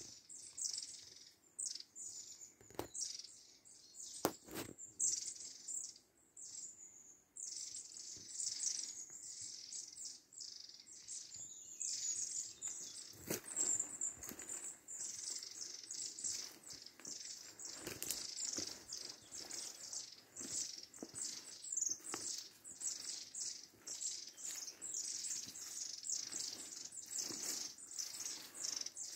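Several songbirds singing in woodland: a dense, continuous chorus of high chirps and trills. A few sharp knocks come about three and four seconds in.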